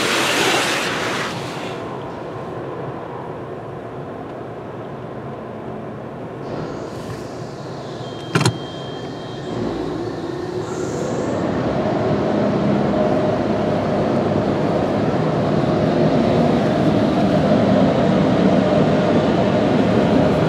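PDQ LaserWash 4000 touchless automatic car wash heard from inside the car: a hissing rush of water spray on the car at the start, then a quieter steady wash noise with one sharp click about eight seconds in. From about ten seconds the dryer blowers come up to a steady whir that grows louder toward the end.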